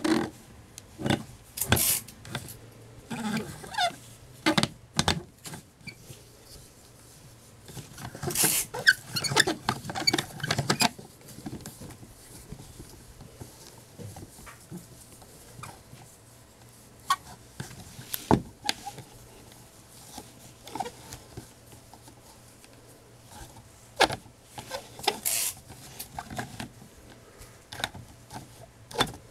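Handling noise from gloved hands moving an antique doll: on and off, cotton gloves rustle against its lace dress, with sharp clicks and knocks as its jointed arms and legs are moved.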